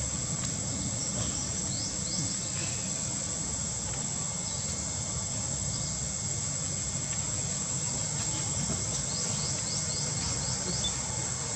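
Insects droning in one steady high-pitched tone, with runs of short rising chirps about two seconds in and again near the end, over a steady low rumbling noise.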